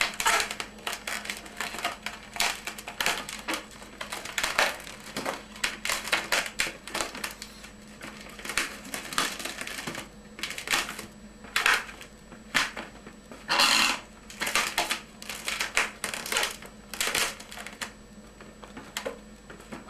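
A green 260 latex modelling balloon being twisted and folded by hand: a string of short, irregular squeaks and rubbing noises from the latex, with one longer squeak about two-thirds of the way through.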